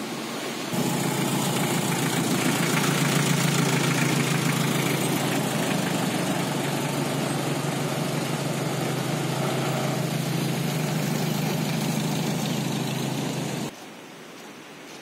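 Vehicle engine running steadily at an even, low pitch, starting suddenly about a second in and cutting off suddenly near the end.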